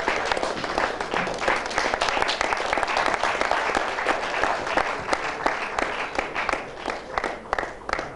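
Audience applauding, many hands clapping together, thinning out and dying away near the end.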